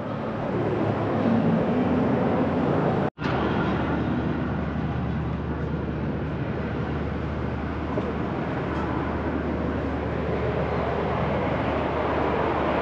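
Steady, noisy rumble with a faint low hum, cut off briefly about three seconds in.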